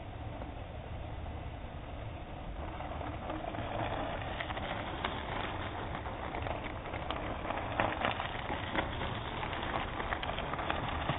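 Mountain bike tyres crunching and crackling over loose gravel as riders climb toward the microphone, growing louder from a few seconds in as the nearest rider comes close, over a steady low rumble.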